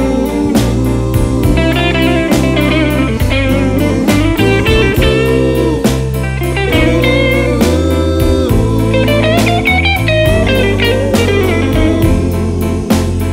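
Background music: a blues-style guitar track over a steady drum beat.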